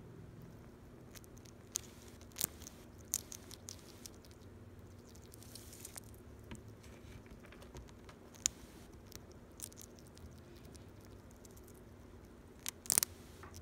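A small pet sugar glider chewing and crunching a treat: soft irregular crisp clicks and crunches, with a louder cluster near the end.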